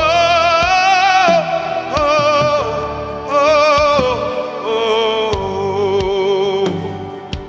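Live gospel worship music: a solo voice sings long held phrases with wide vibrato over sustained accompaniment, in four or five phrases with short breaks between.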